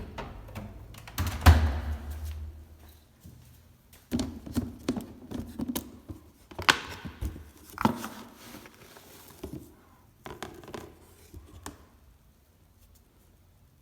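Irregular knocks, thumps and rustling, the loudest thump about a second and a half in, falling quiet about twelve seconds in.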